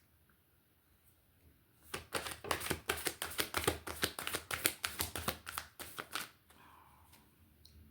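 Rune pieces clattering and clicking against each other in rapid, uneven bursts for about four seconds as they are mixed for the next draw, stopping about six seconds in.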